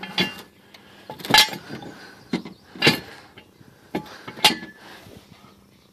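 Steel jack stand being adjusted by hand under a trailer frame: metal clicks and clanks, with three sharp clacks about a second and a half apart and fainter clicks between.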